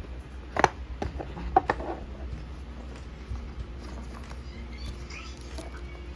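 Handling sounds of small objects and packaging: a few sharp clicks and taps in the first two seconds, then fainter light handling noises, over a low steady hum.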